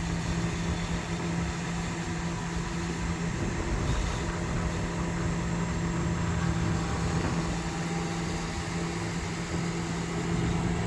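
Tractor engine running at a steady speed, with a constant low hum.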